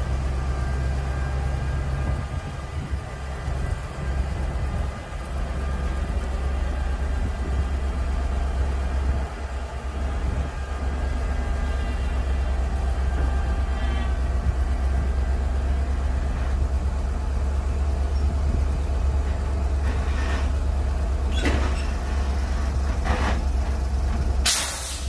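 The 1980 Ford grain truck's engine idling steadily, with a faint higher whine over it that fades out about halfway through. Several short sharp knocks come in the last few seconds, the last one the loudest.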